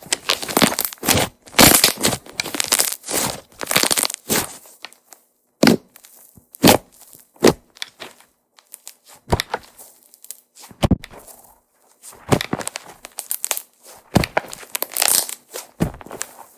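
Soufflé-pancake-style slime being squeezed and kneaded by hand, crackling and popping as trapped air is pressed out. Dense crackling for the first few seconds, scattered single pops in the middle, then dense crackling again near the end.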